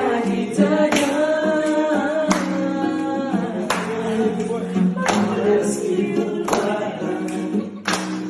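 Acoustic guitar strummed about once every second and a half, with a voice singing held notes over it.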